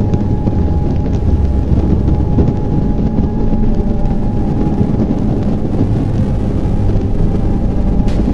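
Ambient electronic drone played on the VCV Rack software modular synthesizer: a dense, low, rumbling wash with a few steady held tones above it.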